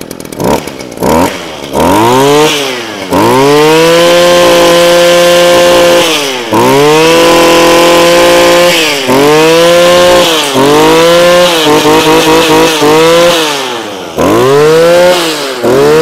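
Shindaiwa SSR2601 brush cutter's 26cc engine revved over and over with the throttle trigger. It gives a few quick blips, then several climbs to full speed, each held for a second or more before dropping back, with a fluttering, feathered stretch near the end. It runs clean and even, "very standard, very smooth", a sign that the engine is in good order.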